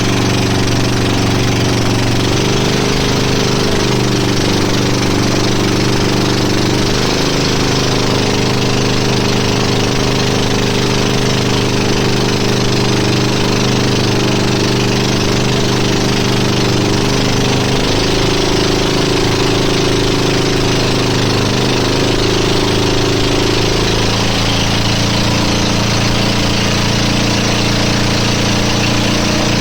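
An engine running steadily and loudly, its pitch shifting up or down in steps every few seconds.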